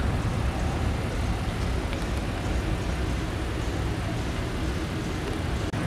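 Car engine idling steadily, a low even rumble.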